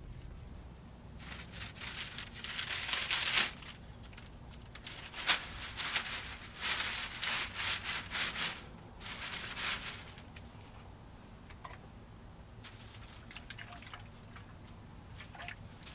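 Dry plant leaves rustling and crinkling as they are handled, in irregular bursts over the first two thirds, then quieter light rustles and clicks.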